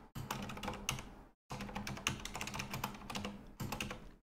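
Computer keyboard typing: a fast, uneven run of keystrokes, broken by a short pause about a second and a half in.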